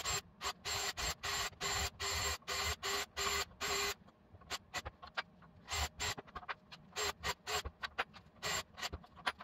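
Cordless drill with a countersink bit run in short trigger bursts, drilling out the rivets that hold the factory grille letters. The bursts come about three a second for the first four seconds, then turn shorter and more irregular.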